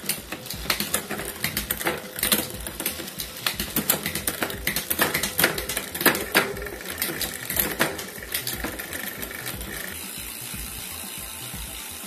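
Bicycle drivetrain turned by hand: the chain running over a new Shimano cassette and the rear hub's freewheel ratcheting in rapid, irregular clicks, easing to a smoother, steady whir near the end. It is the drivetrain being run to check the rear derailleur adjustment.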